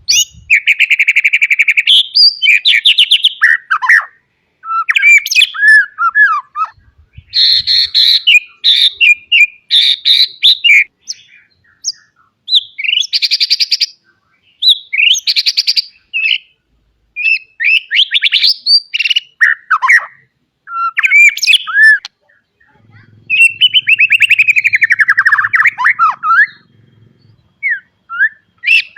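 White-rumped shama singing a loud, varied song full of mimicked phrases: rapid trills, whistles and buzzy notes in short bursts with brief pauses between, and a long falling warble about two-thirds of the way through.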